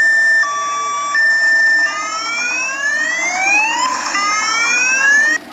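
Electronic siren of an odong-odong tourist road train: a loud two-tone hi-lo pattern, high then low then high, switching about two seconds in to two long rising sweeps that cut off suddenly near the end.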